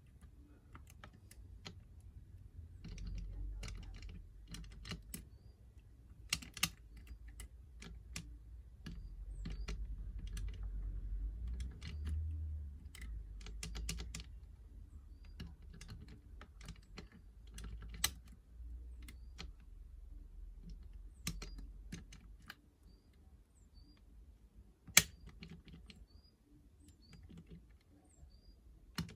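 Light, irregular metallic clicks and taps of a lever-lock pick lifting and setting the levers inside a 5-lever mortice lock, over low handling rumble. One sharper, louder click comes near the end.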